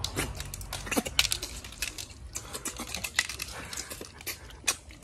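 Cooked snail shells clicking and clattering against plates and each other as several people pick them up and suck the meat out. The clicks are sharp and irregular, several a second.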